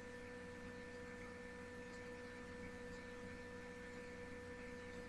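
Faint, steady electrical hum: a few unchanging tones, the strongest mid-pitched, over a light hiss.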